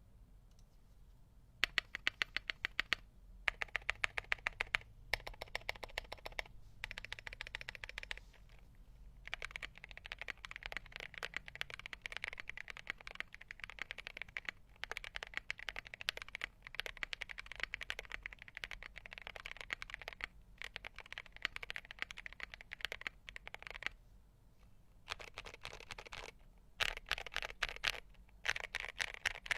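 Fast typing on an Ajazz AC064 mechanical keyboard with Gateron CAP Milky switches and SA Maxkey keycaps, modded with full foam, tape and PE foam: a dense run of deep keystroke clacks in bursts with short pauses, with a few louder strokes near the start and end.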